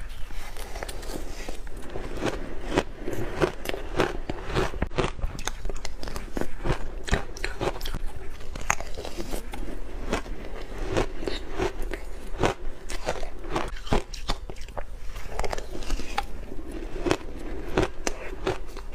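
Close-up crunching of frozen flavoured ice being bitten, sharp cracking crunches in quick succession, several a second and without letup.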